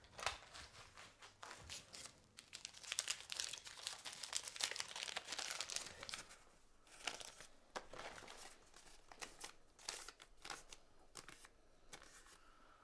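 Wrapping crinkling and rustling as it is handled, in quick runs of small crackly sounds. They are thickest from about two to six seconds in and come again around eight to ten seconds.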